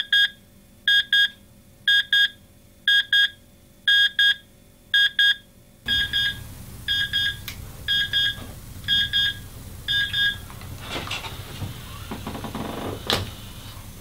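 Digital alarm clock beeping in pairs, about one double beep a second, until it is switched off about ten seconds in. Then bedding rustles as a sleeper sits up under a blanket.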